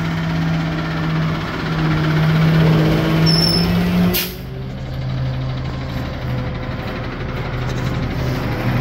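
Natural-gas garbage truck engines running close by, a steady hum. A sharp click about four seconds in is followed by a lower, steady engine note from a second truck.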